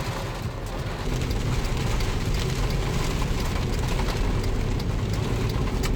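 Steady car-cabin noise of a vehicle on the road in a rainstorm, with rain on the car and scattered raindrops ticking on the roof and windshield.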